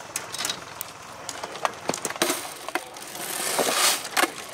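Airsoft skirmish: scattered sharp clicks and snaps of single airsoft shots and BBs striking. A hissing rustle builds from about two seconds in and cuts off near four seconds.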